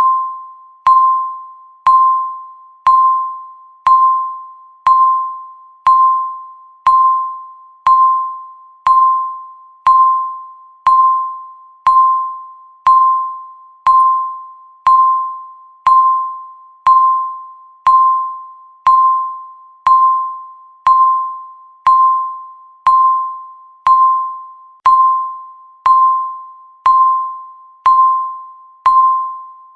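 Countdown timer beeping once a second: a single chime-like electronic tone that strikes sharply and fades away before the next, repeating evenly about thirty times.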